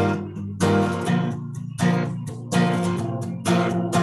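Acoustic guitar strummed in a slow rhythm, about one stroke a second, the chords ringing out between strokes.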